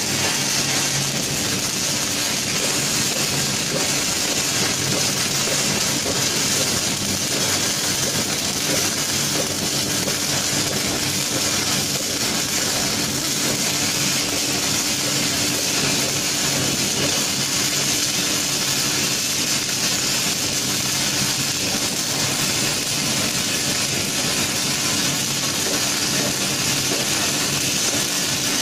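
Robotic MIG welding arc burning without a break: a steady hiss with a steady low hum underneath.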